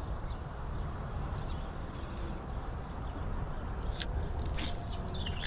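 Outdoor ambience: a steady low rumble with a few short high bird chirps near the end.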